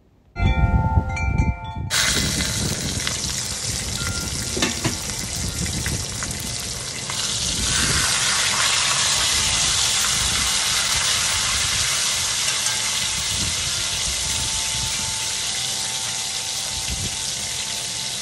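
Ribeye steaks searing in oil in a hot pan on medium-high heat, a steady loud sizzle that grows stronger about eight seconds in. At the start, the pan's glass lid rings briefly as it is lifted off.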